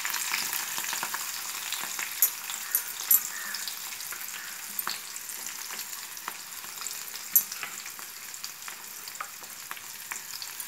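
Chopped onion and green chillies sizzling in hot oil in a kadai, a steady crackling hiss that slowly eases off. A few sharp clicks stand out above it, the loudest about seven seconds in.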